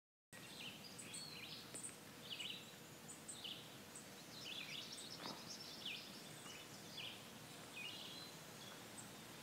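Birds chirping faintly: many short calls and quick falling notes, some overlapping, over a low steady hiss.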